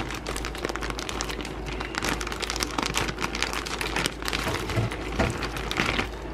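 Cheese tortellini shaken out of a crinkling plastic bag into a pot of water, landing with a patter of small splashes. The crackle stops just before the end.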